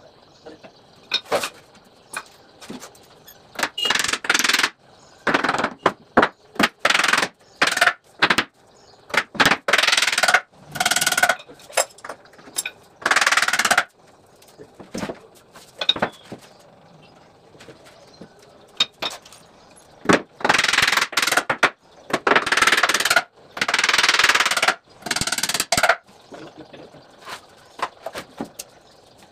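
Carpentry work on plywood bed panels: irregular knocks and clicks mixed with short bursts of rasping tool noise, half a second to a second long, coming every second or two.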